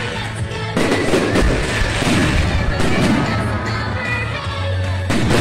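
Aerial fireworks bursting, with sharp bangs about a second in and again near the end, over music with a steady beat playing throughout.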